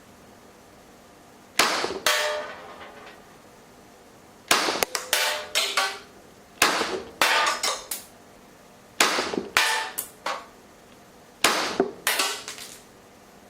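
Tanaka Glock 17 cap-firing model gun with a silencer barrel, shooting double-cap W-CAP cartridges loaded with two MG caps each, its blowback slide cycling. It fires sharp, damped reports, first two shots, then four quick strings of several shots about two seconds apart. The silencer keeps the reports down to a realistic suppressed sound.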